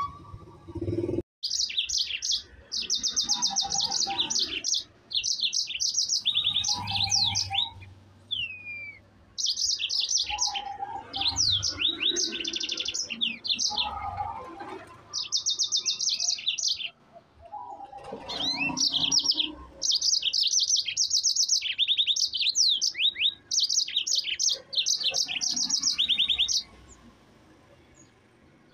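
Yellow-fronted canary (Mozambique canary) singing a long, energetic song of fast, high rolling trills in phrases separated by short pauses. The song stops a couple of seconds before the end.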